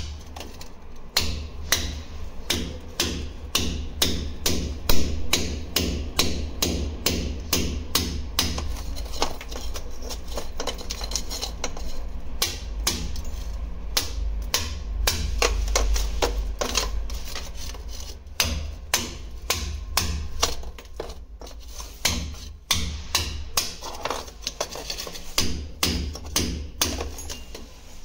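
Hammer striking over and over, about two to three blows a second, with a couple of short pauses.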